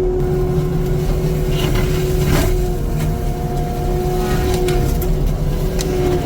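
Heavy diesel machinery running steadily under load, a deep rumble with a steady hydraulic-style whine that wavers slightly in pitch. A few short sharp knocks or cracks stand out over it.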